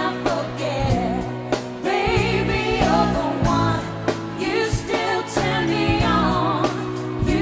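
Live pop ballad: women's voices singing over bass guitar and drums with a steady beat.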